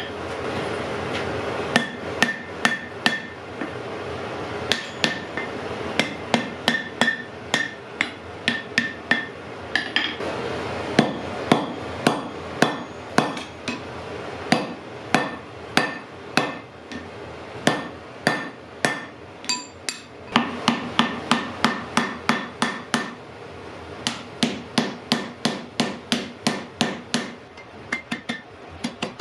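Blacksmith's hand hammer striking hot iron on an anvil, forging an axe: a long run of blows, often two to three a second with short pauses, many with a brief metallic ring.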